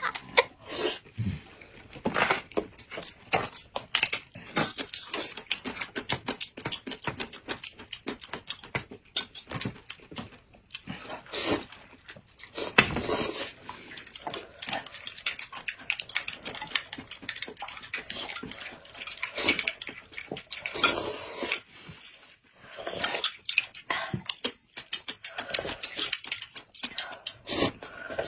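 Close-up eating sounds: noodles being slurped and chewed, with wet mouth smacks and a few longer slurps among the irregular clicks.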